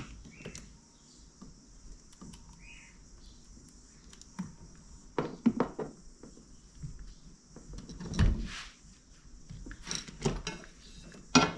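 Hands handling and connecting the GoPro power-supply wires on a kayak: scattered clicks, knocks and rustles, the loudest knocks about five and a half and eight seconds in.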